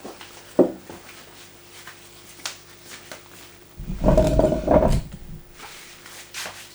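Small clicks and knocks of fishing line winder parts being handled and fitted, with a louder low rumble and hum lasting about a second and a half a little past the middle.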